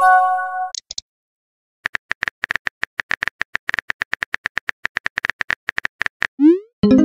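Texting-app sound effects: a short synth message chime at the start, then about four seconds of rapid, even virtual-keyboard tapping clicks. Near the end comes a short rising swoosh of a message being sent, followed by another chime.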